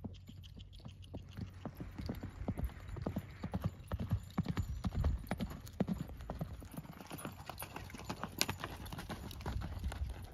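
An Arabian horse's hooves loping on a dry dirt arena: a quick, uneven drumming of hoofbeats that gets louder a couple of seconds in.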